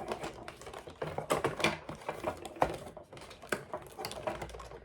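Hands working a cardboard doll-box insert and its plastic T-tags, folding them down: irregular small clicks, taps and light scrapes.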